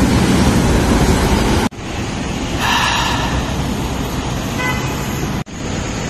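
Road traffic at a city crossroads, with a car driving past. After a cut it becomes a softer steady traffic hum, and a short car horn toot sounds about three-quarters of the way through.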